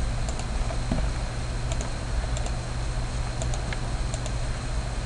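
Faint, scattered clicks of someone working a computer, a few every second or so, over a steady low hum.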